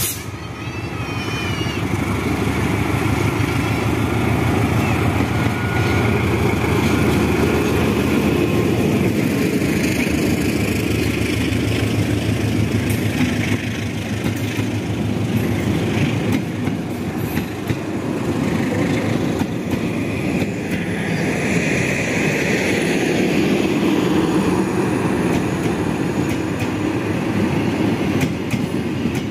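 A diesel-electric locomotive hauling a passenger train passes close by, then its coaches roll past on the rails with a steady loud rumble.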